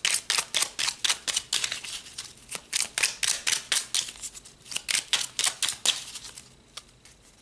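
Tarot deck being shuffled in the hands: a quick run of card slaps, about five a second, that stops about six seconds in.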